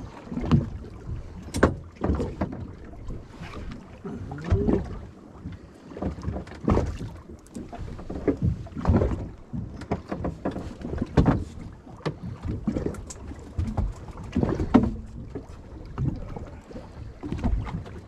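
Waves slapping irregularly against the hull of a small boat drifting on choppy sea, with wind buffeting the microphone.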